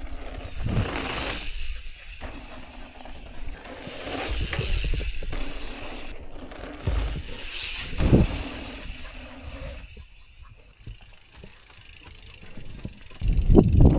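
Mountain bike's rear freehub ratchet ticking as the bike coasts, mixed with rushing noise from the ride. There is a sharp knock about eight seconds in.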